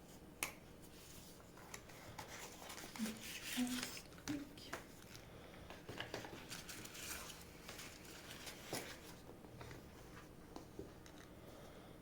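Hands handling a phone's packaging during an unboxing: scattered sharp clicks and taps with short rustles of cardboard and plastic, busiest about three to five seconds in.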